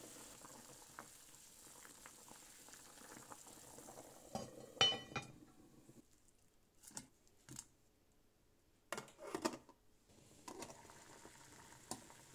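Cooking sounds: a pot on the heat with a faint steady bubbling hiss, broken by a few clinks and knocks of cookware. The loudest is a ringing metallic clink about five seconds in, with more knocks around seven and nine seconds in.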